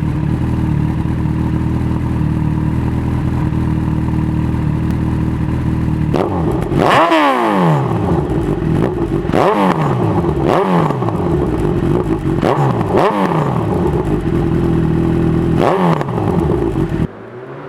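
Honda CB1000R inline-four through an IXIL Hyperlow slip-on exhaust with a decat pipe: idling steadily, then revved in several quick throttle blips, each rising and falling back to idle. The engine sound cuts off suddenly near the end.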